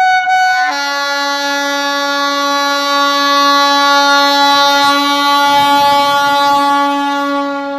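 WAG-5 electric locomotive's air horn sounding one long, loud blast: a higher note for under a second, then a lower, fuller note held steady throughout.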